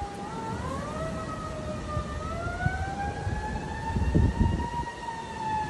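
A siren wailing, its pitch gliding slowly up and then easing back down, with gusts of wind buffeting the microphone.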